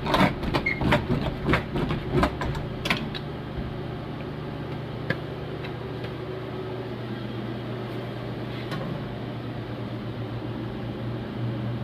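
Spiked dough docker rolled back and forth over pizza dough on a steel counter, a quick run of clicks and taps for about the first three seconds; docking the base keeps bubbles from forming. Under it and after it, a steady low hum of kitchen machinery.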